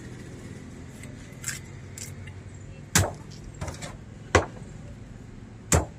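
Heavy machete blade chopping through a carp's body into a wooden stump block: three hard chops about a second and a half apart, starting about halfway through, with a few lighter knocks and taps between.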